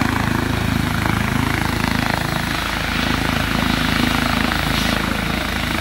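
Yellow Eurocopter EC135 air ambulance helicopter running on the ground, its turbine engines and rotor going steadily with a fast rotor beat, waiting to lift off.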